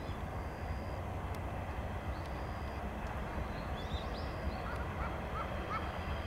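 Steady low outdoor rumble with a few short bird chirps, most of them in a quick cluster a little after halfway.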